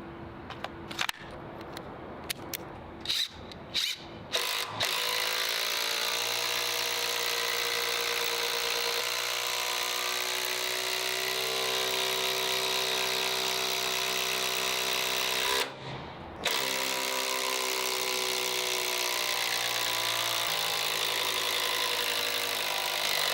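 Makita TD001G 40V XGT brushless impact driver running: a few short trigger bursts first, then a long continuous run of about eleven seconds, a brief stop, and another run of about seven seconds.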